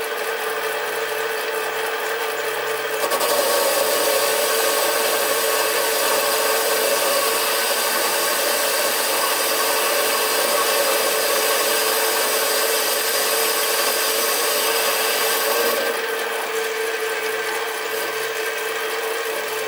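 Sieg SC3 mini lathe running with a steady motor whine while a carbide insert tool skims the diameter of a flywheel held on an arbor. The cutting adds a stronger hiss from about three seconds in until about sixteen seconds in, then the lathe runs on alone.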